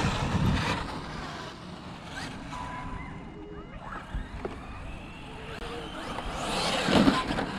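Electric RC monster trucks (Traxxas X-Maxx) driving over grass, their motors whining faintly in short rising and falling pitches over a steady rush of noise.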